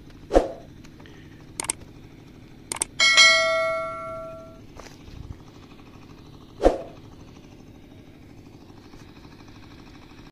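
Subscribe-button animation sound effect: a couple of short clicks, then a bright notification-bell ding that rings out for about a second and a half. A sharp hit sounds near the start and another about seven seconds in, over a low steady hum.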